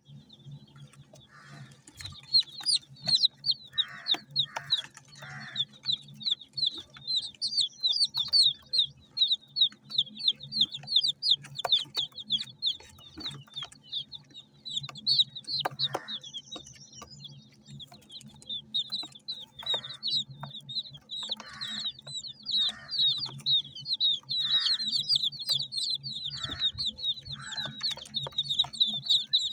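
Domestic chicks peeping continuously, a dense stream of short high chirps from many birds at once, with occasional lower, rougher calls mixed in.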